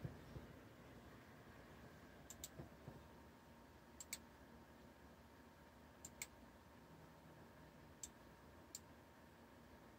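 Computer mouse button clicking, mostly in quick press-and-release pairs, about every two seconds. A dull knock right at the start is the loudest sound.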